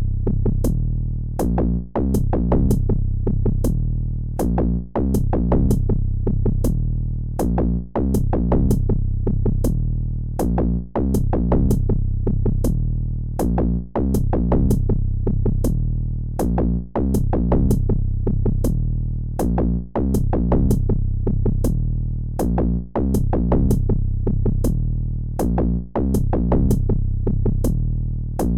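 Electronic background music with a steady drum-machine beat and heavy bass, starting abruptly after silence and repeating a short phrase about every three seconds.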